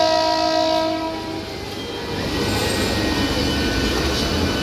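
Eastern Railway EMU local train running past the platform. Its horn sounds once at the start and cuts off about a second and a half in, leaving the steady rumble of the coaches rolling by.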